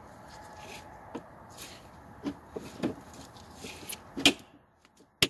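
Hard plastic poultry crate parts knocking and clattering as a side wall is worked into the base, with a louder knock about four seconds in and a sharp click near the end.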